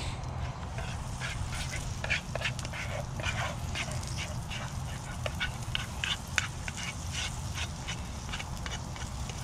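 Hot butter in a cast iron skillet sizzling and spitting as thick bread batter is poured and spooned in: a quick, irregular run of sharp pops and crackles over a steady low rumble.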